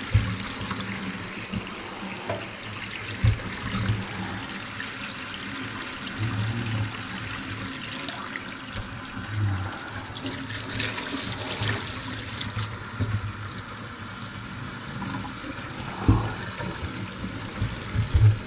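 Water running into a kitchen sink and down its drain, hissing more strongly for a couple of seconds midway, with a couple of low thumps.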